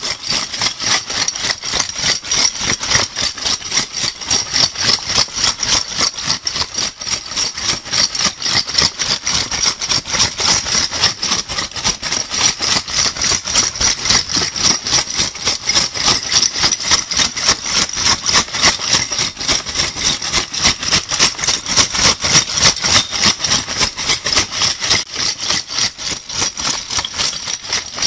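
Metal crown bottle caps shaken in a bag, rattling and clinking against each other in a fast, steady rhythm of several shakes a second.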